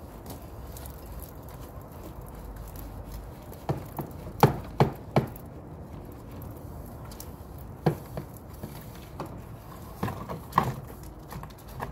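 Sharp knocks and taps of a long brush pole against a plastic gutter and fascia while it is scrubbed, a quick run of about five about four seconds in and a few scattered ones later.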